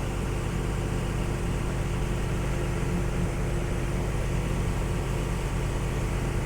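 Combine harvester running steadily, a constant engine drone with a low hum and a fixed mid tone, while it unloads canola.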